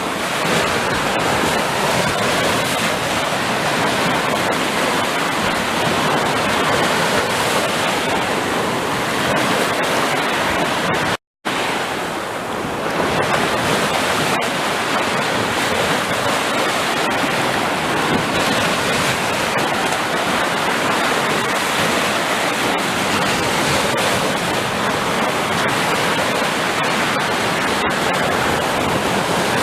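Sea surf: waves washing in as a steady, dense rush of water noise. About eleven seconds in, the sound cuts out completely for a split second and then resumes.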